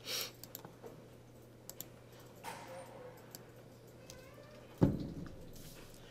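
A few faint computer mouse and keyboard clicks over a steady low electrical hum, with one dull thump just before five seconds in.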